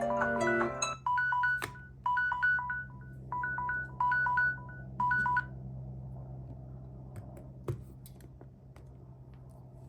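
Smartphone alarm tones: a mallet-like melody ends about a second in, then groups of quick high beeps on two pitches repeat about once a second and stop about five and a half seconds in. Afterwards a steady low hum remains, with a few faint clicks, one sharper near the end.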